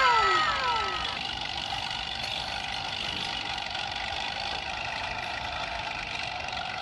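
Vehicle engine running steadily, a hum of several even tones; a falling whine fades out in the first second.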